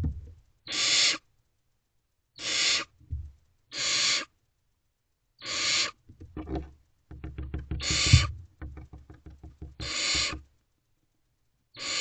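Barn owlets giving a run of rasping, hissing calls, each about half a second long, one every 1.5 to 2 seconds, the repeated begging 'snore' of barn owl nestlings. From about six to ten seconds in, soft scuffles and knocks come from owlets moving on the floor of the wooden nest box.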